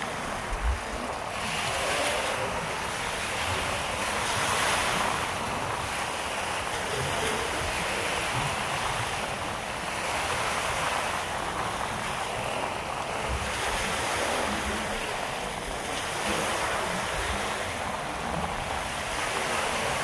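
Small waves breaking and washing up on a sandy beach in a steady, gently surging wash, with wind buffeting the microphone.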